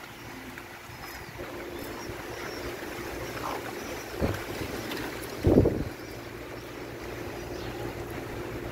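Strong sandstorm wind blowing steadily over the microphone and building in strength. About five and a half seconds in there is a short, loud gust buffet, with a smaller one shortly before.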